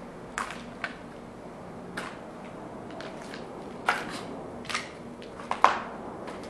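Footsteps crunching on a debris-strewn floor: irregular sharp crunches, the loudest near the end, over a steady low hiss.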